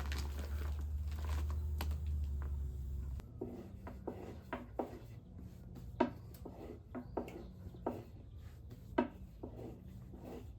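A low steady hum that cuts off suddenly about three seconds in, followed by a run of light, irregular taps and knocks, two of them sharper than the rest.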